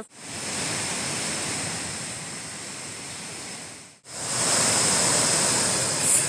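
Steady rushing noise of a waterfall's falling water. It breaks off briefly about four seconds in and comes back louder.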